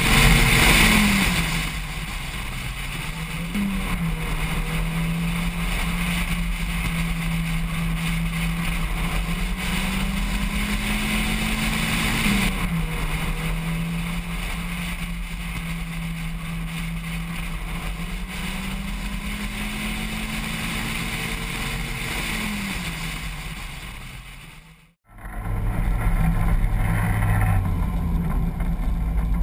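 Race car engine running at speed under heavy wind rush, its note slowly climbing in pitch and then dropping sharply several times. After a brief dropout near the end, a deeper, louder engine note follows.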